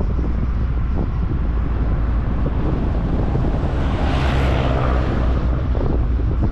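Car driving on a paved mountain road: a steady low rumble of engine and tyres, with wind buffeting the microphone. A rushing swell rises and fades about four seconds in.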